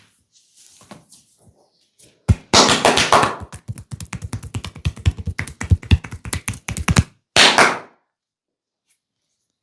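Percussive massage: a fast run of tapping strikes on the body, about eight a second, starting about two seconds in and stopping after about five seconds, followed by one short brushing burst.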